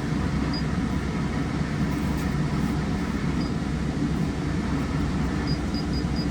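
Hino diesel engine of a Kobelco SK210LC-9 excavator running steadily, heard from inside the cab as a low hum. A few short, high beeps sound over it, most of them close together near the end.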